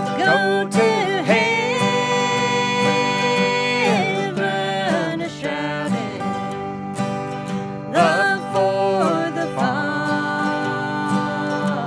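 A man and a woman singing a slow country gospel song in harmony over acoustic guitars, holding a long note twice.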